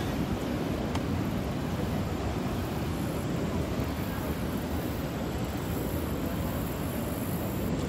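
Niagara Falls: the steady, dense rush of a massive waterfall, heaviest in the low end.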